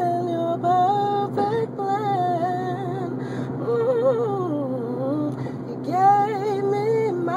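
A man singing a gospel song in long, high, drawn-out phrases that bend up and down, over a steady low hum.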